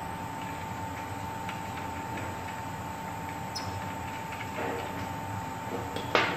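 Steady machinery hum with a constant whine, over light metal clicks of nuts being threaded by hand onto the flange bolts of a pump's rubber compensator. A sharp metal clank comes near the end.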